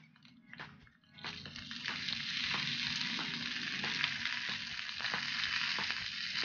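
Chopped fresh coriander leaves hitting hot tempering oil in a kadai, with a loud, steady sizzle starting about a second in. A steel spoon scrapes and taps the pan as the leaves are stirred.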